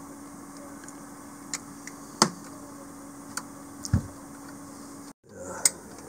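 Scattered sharp metallic clicks and taps, with one duller knock about four seconds in, as the fittings of a fuel return line are worked by hand onto the injectors of a Volvo Penta D2-55 marine diesel, over a steady low hum.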